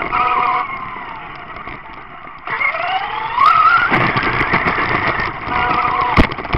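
Traxxas Rustler RC truck's brushless motor whining, with tyre rumble on asphalt. The pitch falls as it coasts for the first couple of seconds, then rises fast as it accelerates hard. There is a sharp knock about six seconds in.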